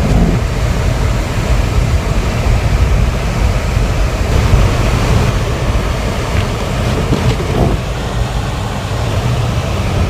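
Strong wind buffeting the microphone in a loud, steady low rumble, with a car's road noise underneath, as through an open car window in a blizzard.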